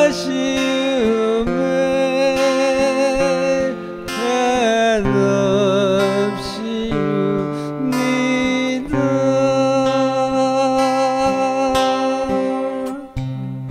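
A man singing to a strummed acoustic guitar, the voice wavering on long held notes. Near the end a last chord is struck and left to ring out and fade.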